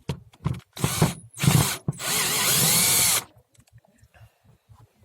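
Power drill with a Torx 30 bit unscrewing a screw: several short bursts, then a steady run of just over a second with the motor pitch rising and falling, then it stops.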